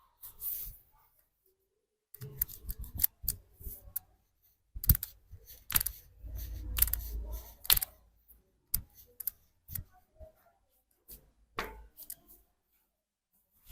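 Barber's hands working on a head and neck massage: an irregular run of sharp clicks, pats and slaps, with a spell of low rubbing noise about halfway through.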